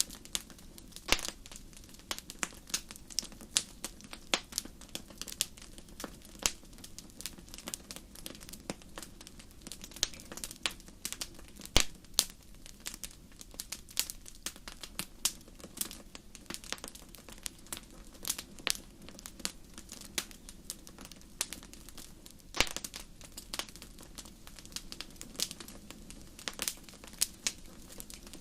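Wood fire crackling in a fireplace: irregular sharp pops and snaps, several a second, over a soft steady rush of burning.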